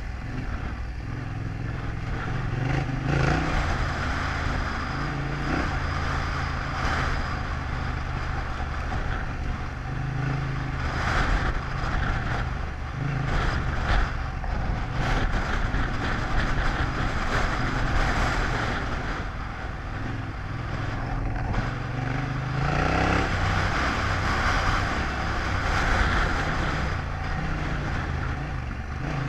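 Yamaha Ténéré 700's parallel-twin engine running at low, changing revs as the motorcycle rides a grassy dirt track, with wind rush over the microphone. Late on, the revs climb quickly once.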